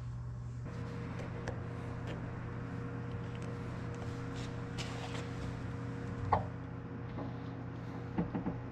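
Small clicks and rustles of electrical wires and a light's plug being handled and joined by hand, with a sharper click about six seconds in and three quick clicks near the end, over a steady low hum.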